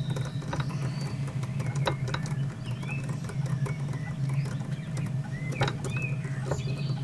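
Small lathe running with a steady low hum while a tiny die cuts a 1.2 mm thread on a clock screw, with scattered light clicks and short high squeaks.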